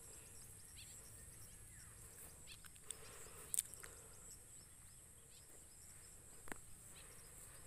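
Faint, steady high-pitched insect chorus, crickets or cicadas, with a couple of sharp clicks about three and a half and six and a half seconds in.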